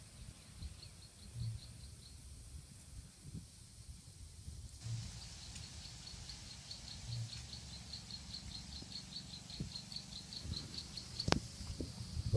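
An insect chirping in a fast, even series of short high chirps, about five a second. The chirping stops for a couple of seconds and then carries on. Near the end there is one sharp click.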